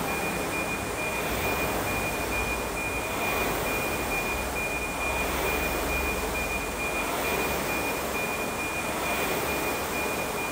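Air rowing machines' flywheel fans whirring steadily, swelling gently about every two seconds with each stroke.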